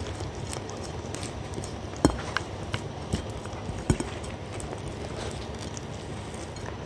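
A dog licking soup from a plate held close to a microphone. Under a steady low mouth noise, a few sharp clicks of its mouth against the plate come in the middle.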